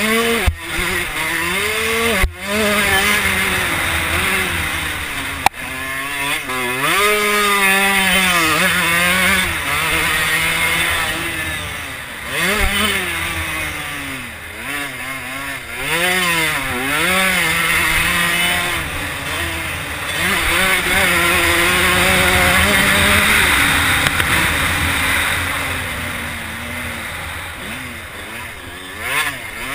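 Motocross bike engine heard on board, revving hard and falling off again over and over as the rider accelerates and shuts off around the track, with three sharp knocks in the first six seconds.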